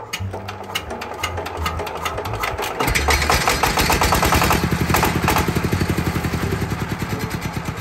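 Dong Feng single-cylinder diesel engine being hand-cranked. It speeds up, catches about three seconds in, then runs with quick, even exhaust beats.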